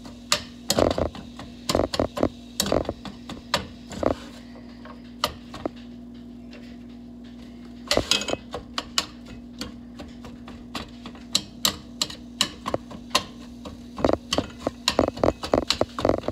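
A plastic meat chopper tapping and scraping against a stainless steel skillet as ground turkey is broken up and stirred: irregular clicks and knocks, thinning to a few taps for several seconds in the middle, over a steady low hum.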